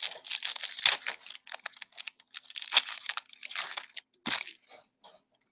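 Foil hockey-card pack wrapper crinkling as it is handled and torn open, with cards shuffling between the fingers. The crinkling comes in several spells, loudest in the first second and again around three seconds in.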